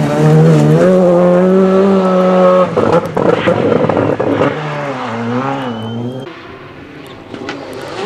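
Rally car engine at high revs, held near one pitch and then broken off by a shift about three seconds in. It revs up and down again, then fades as the car pulls away, with a few sharp pops from the exhaust.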